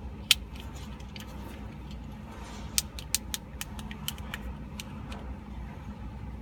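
Light, irregular clicks of a plastic fidget cube's buttons and switch being pressed, about ten of them, bunched between about three and five seconds in, over a steady low hum.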